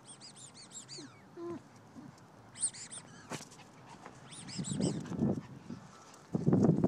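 A bird chirping in three quick runs of high, repeated notes. Heavier rustling and thumping from the recording phone being moved about comes in toward the end and is loudest just before it ends.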